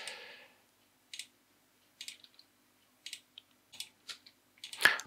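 Faint, sparse clicks of a computer keyboard and mouse, about half a dozen short taps spread a few tenths of a second to a second apart.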